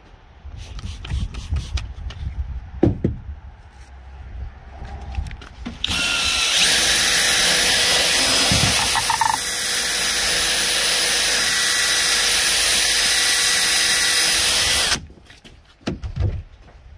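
Cordless drill spinning a round scrub brush against a cloth door-panel insert, a steady loud whir that starts about six seconds in, runs for about nine seconds and cuts off suddenly. Before it, a few quick spritzes of a trigger spray bottle and handling noises.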